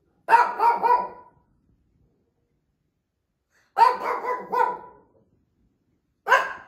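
Shih Tzu barking in short runs of about three barks each. There are two runs with a pause of a couple of seconds between them, and another bark comes near the end.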